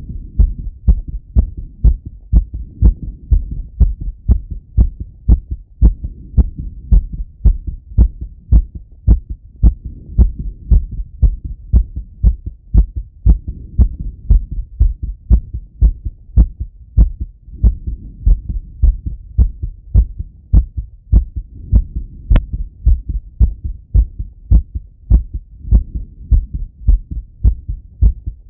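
A man's heartbeat heard through a Littmann stethoscope on his chest: regular, quick thumping beats, his heart rate raised from working out. A small click sounds once about 22 seconds in.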